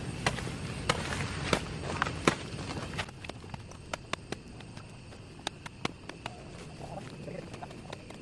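Brush and grass being slashed by hand with a blade: a run of sharp chopping strikes about every half second, then lighter, scattered ticks for the rest of the time.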